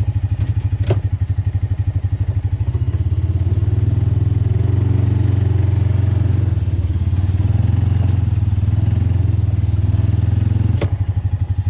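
A small vehicle's engine runs under load, dragging a chained log over wet ground. It works harder for several seconds in the middle, then eases off with a knock near the end.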